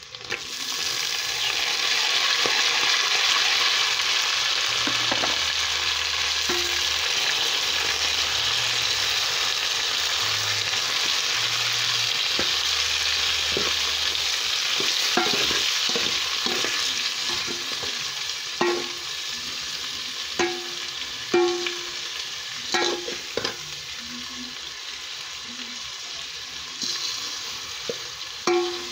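Small fish frying in hot oil in a metal pot: the sizzle jumps up loud just after chopped tomatoes are tipped in, then eases off from about halfway. A metal spoon stirs the mixture, clinking against the pot with short ringing knocks in the second half.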